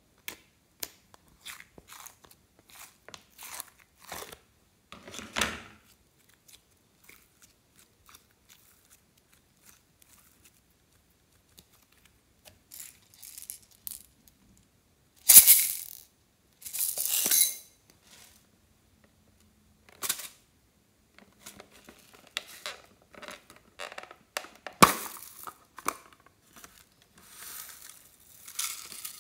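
Slime being handled in hard plastic molds: scattered clicks and taps on plastic with soft squelches, two loud tearing noises about halfway through as slime is peeled away from a mold, and a sharp knock a few seconds later. Near the end comes a rattling patter as small beads and glitter are poured from a plastic box onto the slime.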